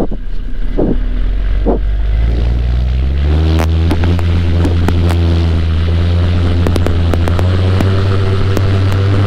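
Paramotor's two-stroke engine and propeller running low, then throttling up about three seconds in and holding a steady high-power drone, with wind buffeting the microphone and scattered sharp ticks.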